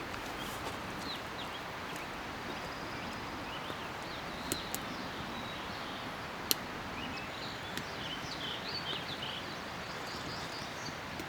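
Small birds chirping in short calls, busiest about two-thirds of the way through, over a steady rushing background noise, with a few sharp ticks.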